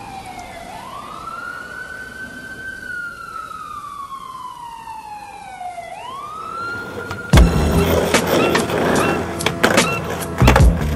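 Emergency-vehicle siren in wail mode: its pitch sweeps up quickly, then falls slowly, twice. About seven seconds in it is cut off by music with a strong beat.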